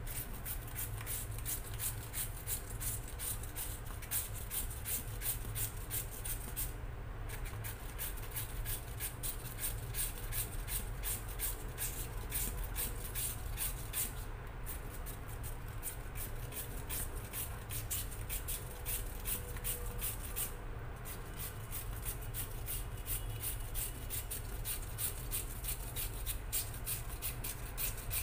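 Taro root being shredded on a hand grater: quick, even rasping strokes, pausing briefly about every seven seconds.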